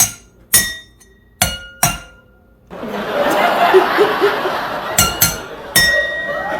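Drinking glasses tapped one after another in a rhythm pattern, four quick clinks at different pitches, each ringing briefly. After a stretch of noisy sound in the middle, three more clinks come near the end.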